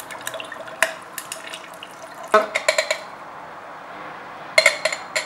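Vodka poured over ice into a stainless steel cocktail shaker, with a few sharp clinks along the way. Near the end a glass knocks several times against the shaker as muddled lime is tipped in, the steel ringing briefly after each knock.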